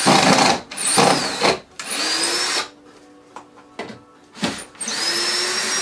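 Cordless drill-driver working into OSB wall board in four runs. The first two are short and rough. The next two are longer, and in each the motor's pitch rises as it speeds up; the last comes near the end.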